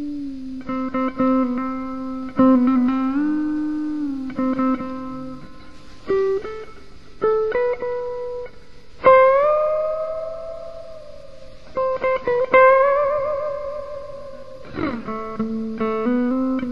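Electric guitar played clean through a small solid-state AXL G20R amp with reverb: single picked notes and short phrases, with a note bent up and held about nine seconds in and another held with vibrato a little later.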